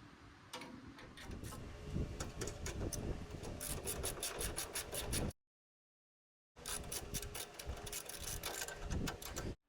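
Hand ratchet wrench clicking rapidly as it tightens the lower mounting bolt of a newly installed shock absorber. The ratcheting cuts out completely for about a second midway, then resumes.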